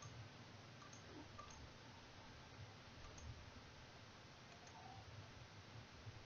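Near silence: faint room tone with a few soft computer mouse clicks.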